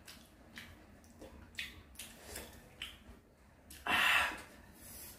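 Soft wet squishing and small ticks of bare hands pulling apart boiled armoured suckermouth catfish, with one loud, breathy exhale about four seconds in.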